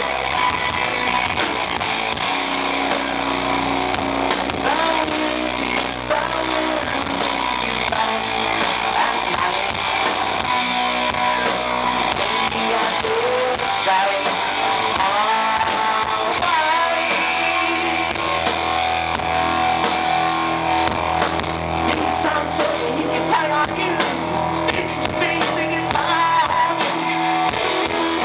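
Live rock band playing, with guitar and drums, through a heavily distorted recording.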